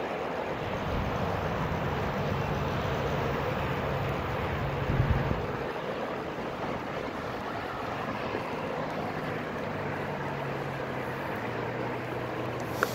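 Wind rushing over the microphone while a Onewheel Pint rolls fast over pavement, with a faint low hum from the tyre and hub motor and a short thump about five seconds in.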